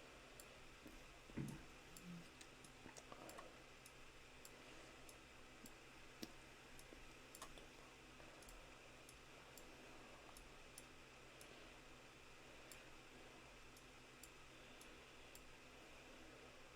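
Faint, irregular computer mouse clicks over near-silent room tone, with a soft low thump about a second and a half in.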